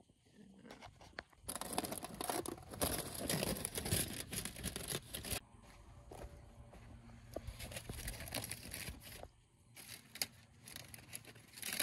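Rustling and crackling handling noise, loudest from about a second and a half in to about five seconds in. Near the end comes a crinkling of aluminum foil as the foil cover is peeled back from a cast iron skillet.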